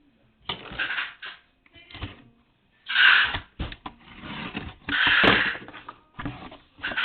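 Rustling and clicking from a package being opened and its packaging handled, with two louder half-second rustling bursts about three and five seconds in.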